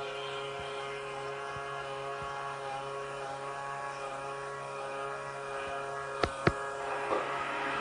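Steady humming drone of the electric motors running in a LEGO pinball machine, with two sharp clicks about six seconds in.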